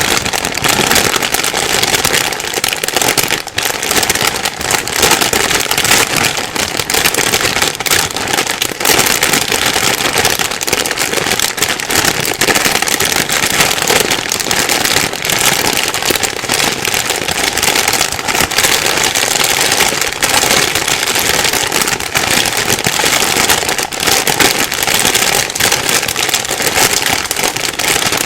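A plastic bag rustling and crinkling without pause, a dense, uneven crackle of thin plastic being handled.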